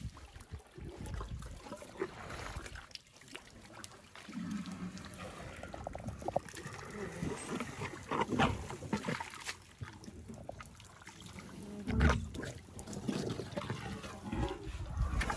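African elephants drinking at a waterhole: water dribbling and splashing as their trunks draw it up and empty it into their mouths, with irregular low thuds, the loudest about twelve seconds in.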